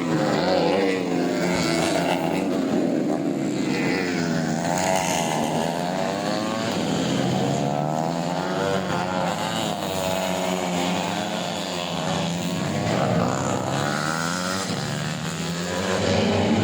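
Tuned four-stroke 125 cc underbone racing motorcycles running loud, their engine pitch rising and falling over and over, with more than one engine note crossing at times.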